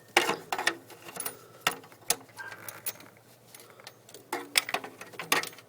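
Irregular metallic clicks and clinks of a spark plug socket wrench and extension being worked on a rear spark plug, metal tools knocking against each other and the engine.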